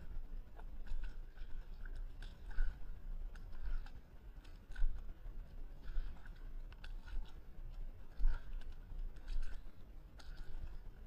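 Footsteps of mud-caked Converse canvas sneakers on a wet, muddy path: a wet, crunching step about once a second, over a steady low rumble on the microphone.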